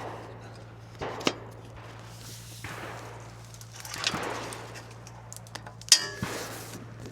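Handling noises: a sharp knock about a second in, then rustling, then a louder sharp metallic click with a brief buzzing ring about six seconds in. A low steady hum runs underneath.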